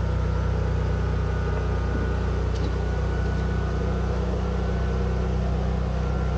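A steady, unbroken low motor hum with no change in pitch or level.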